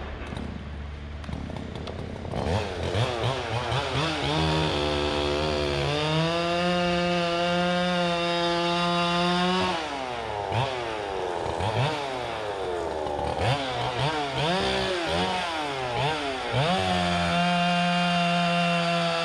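Gas chainsaw revving up and down in quick throttle blips, then held twice at steady full throttle for a few seconds while cutting into a big white oak log.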